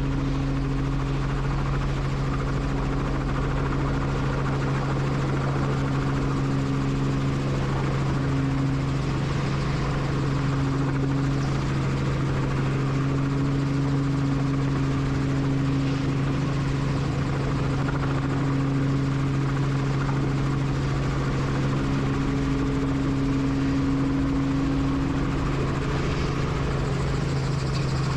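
Helicopter running steadily: a constant low drone of engine and rotor with a steady hum, unchanging throughout.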